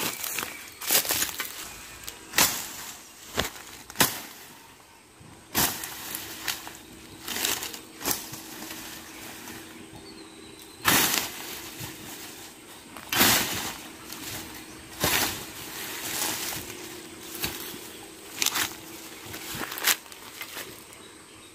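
Long-handled billhook, a curved blade on a pipe handle, chopping into brush and weeds in a string of sharp strikes, about one every second or two at an uneven pace.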